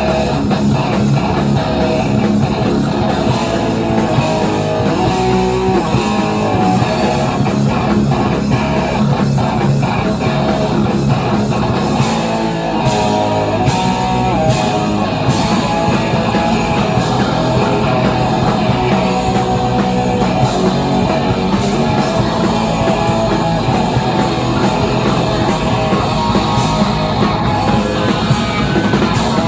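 A live heavy, distorted rock band playing: electric guitar riffs over bass and a drum kit, with no singing.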